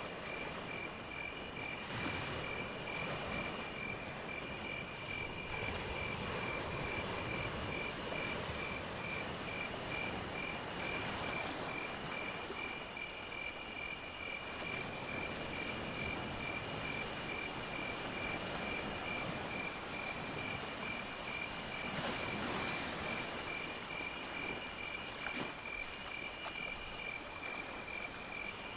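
Insect chorus of crickets: one chirping in a steady, even pulse, and a very high trill that starts and stops every second or two, over a continuous low rumble.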